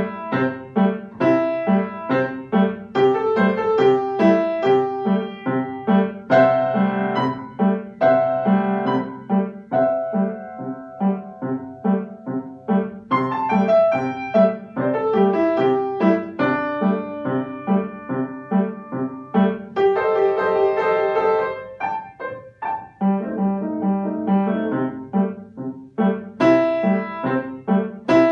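A grand piano played solo: a classical piece in a steady rhythm of short, clear notes.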